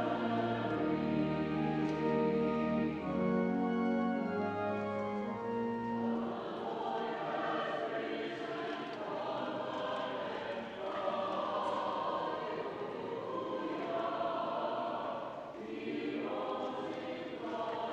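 Church choir singing a sacred piece, over steady held chords during roughly the first six seconds, then voices alone.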